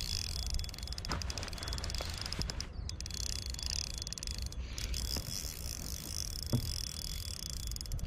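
Spinning reel ticking rapidly in fits, with a few single clicks, while a hard-fighting hooked salmon is played on the line, over a low steady rumble.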